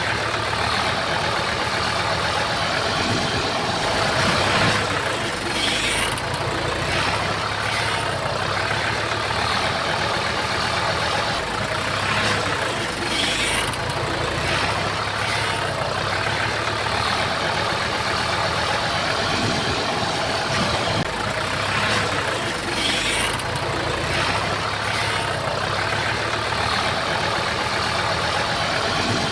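Komatsu bulldozer's diesel engine running steadily, with a few brief high hissing noises.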